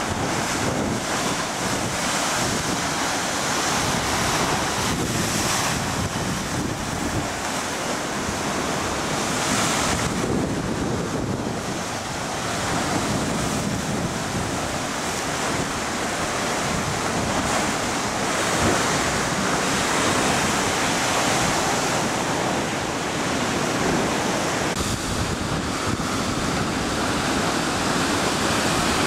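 Rough Pacific surf churning against rock ledges: a steady rush of whitewater that swells and eases with the waves, as water pours back off the rocks.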